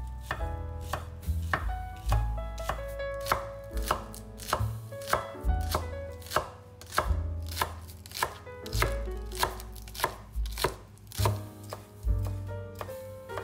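Knife chopping food on a cutting board at a steady pace, about two strokes a second, over soft background music.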